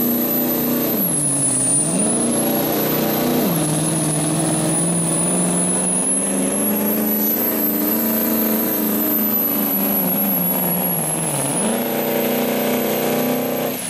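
Diesel engine of a 2005 Chevrolet pickup (Duramax V8) running flat out pulling a weight sled, a high whistle riding over it. The engine note sags and recovers about a second in, steps down at about three and a half seconds, dips again near the end, then drops away sharply at the very end.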